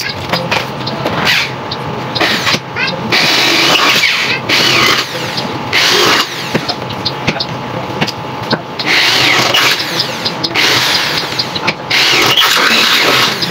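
Electric hand drill boring holes for the lock into an aluminium sliding gate, running in repeated bursts of a few seconds with short pauses between.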